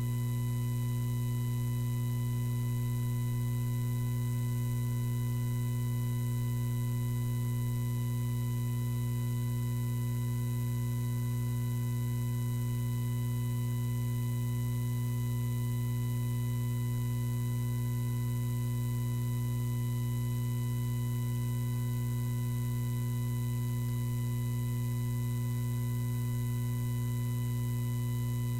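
Steady electrical mains hum: a low buzz with a faint higher whine above it, unchanging throughout. No speech or other sound comes through it.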